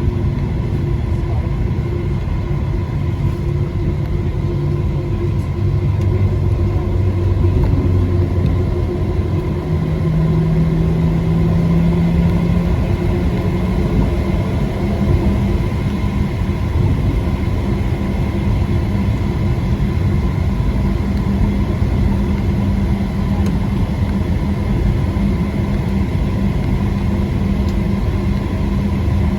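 Steady low rumble inside the cabin of a Boeing 737-700 on the ground, with a low hum that steps up in pitch about ten seconds in and then holds.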